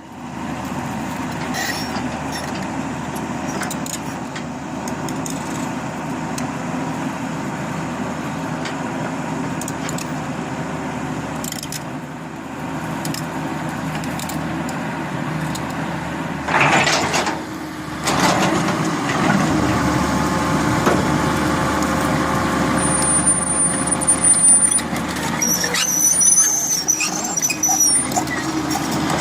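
Heavy truck engine running steadily. It is broken by a loud burst of noise about halfway through, and there are high-pitched squeals near the end.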